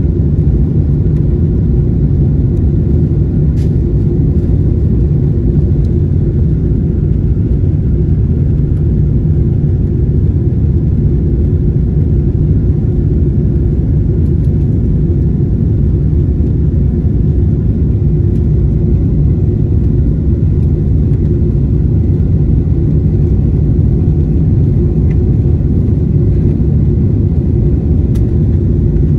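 Steady low roar of a Boeing 777's engines and airflow, heard from inside the passenger cabin during the climb after takeoff.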